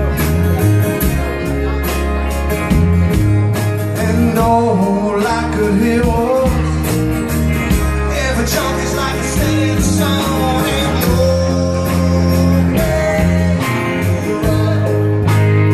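Live country-rock band playing: electric and acoustic guitars over a steady bass line and beat, with a melody line that bends up and down in pitch partway through.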